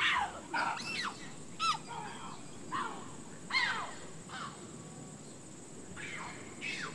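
A series of about ten short animal calls, each sliding sharply down in pitch, most of them in the first half and two more near the end.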